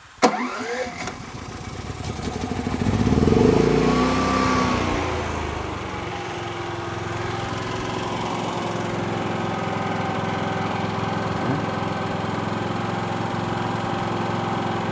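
Predator 9500 inverter generator's 459cc engine starting cold: a sharp click, then the engine catches and revs up for a few seconds before settling into a steady run as it warms up.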